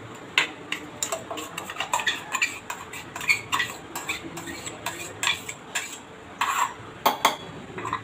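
A spoon scraping and knocking inside a stainless-steel mixer-grinder jar and against a steel bowl: irregular metallic clinks and scrapes as thick ground coconut chutney is scraped out.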